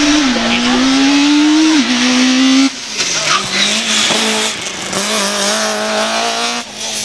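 Slalom race car engine at high revs, accelerating hard with two quick upshifts in the first two seconds, then pulling steadily under load with the tyres squealing.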